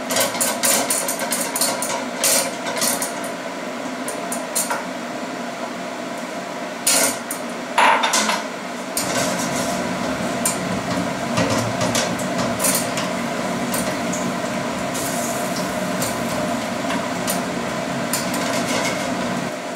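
Spatula knocking and scraping against a wok as a lump of butter or margarine is stirred while it melts, a series of sharp clicks and taps over a steady background hum.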